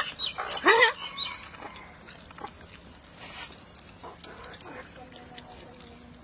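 Noisy eating by hand: slurping, sucking and chewing on pieces of meat curry, with a short voiced grunt-like sound and the loudest mouth noises in the first second, then softer chewing and lip smacks.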